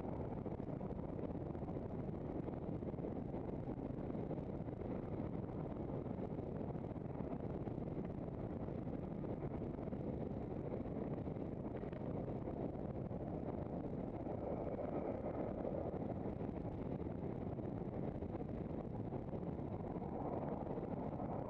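Steady wind rush on the microphone of a camera mounted on a moving handcycle, mixed with the rumble of its tyres on the road.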